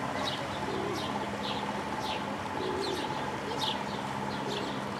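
A small bird chirps over and over, about two short falling chirps a second. Pigeons coo softly and low now and then, over a steady hum.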